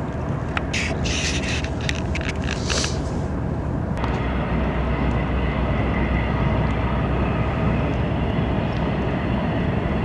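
A long train rolling along the tracks and across a bridge, a steady rumble. A few light clicks and rustles come in the first three seconds.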